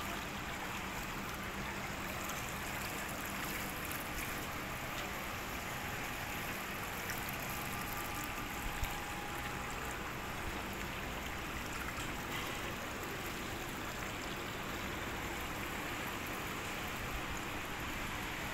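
Floodwater gushing steadily out of the open end of a lay-flat hose onto brick paving, a constant rushing splash.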